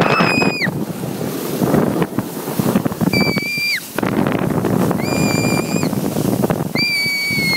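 A child screaming with glee in four long high cries, each held steady and dropping off at its end, over the rushing noise of a snow tube sliding fast down a snowy hill with wind on the microphone.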